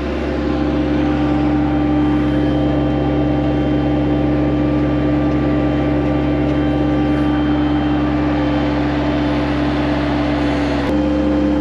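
Engine of a bucket-equipped loader machine running steadily while grading. There is a short click near the end, after which the engine note shifts slightly.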